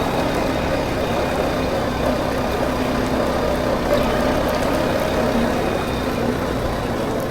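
Four-wheeler (ATV) engine running steadily with an even drone and no sharp revving.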